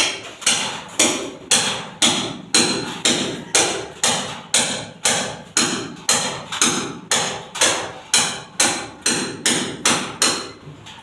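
Hammer blows struck in a steady rhythm, about two a second, each a sharp knock that dies away quickly.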